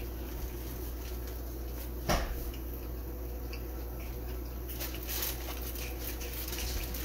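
Steady low hum of pans cooking on the stove, with faint scattered crackles and one short knock about two seconds in.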